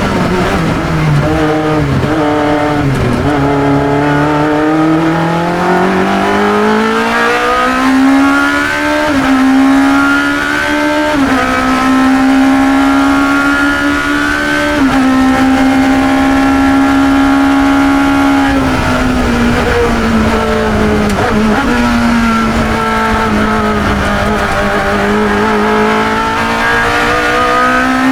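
1972 Chevron B21 sports racer's engine heard onboard at speed. The revs fall in a brake-and-downshift near the start, then climb hard for several seconds and hold high and steady. About two-thirds of the way through they drop again and climb once more toward the end.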